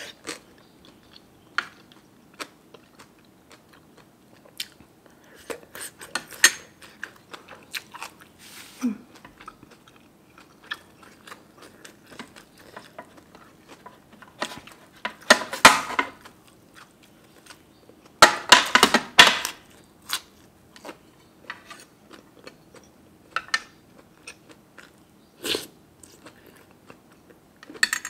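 Close-miked chewing and biting of pork noodle soup toppings, with scattered small mouth clicks and a few louder bites about a second long, the loudest a little past the middle.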